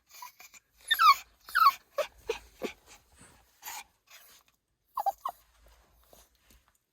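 A dog whining and yipping: a few short, high calls that slide down in pitch, loudest about a second in, followed by smaller yips and a quick pair of calls near the end.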